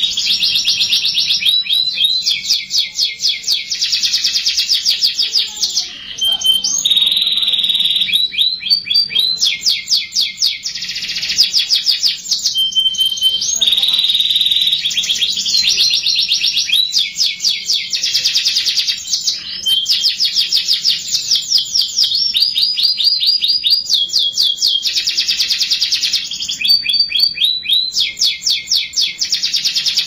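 Domestic canary singing a long unbroken song of fast trills. Each phrase is a quick run of one repeated note that switches to a new phrase every second or two, with a few short steady whistles between.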